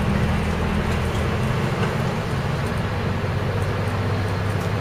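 City bus engine running as the bus drives along, heard from inside the cabin: a steady low drone with road noise from the wet road. The engine note settles lower about two seconds in.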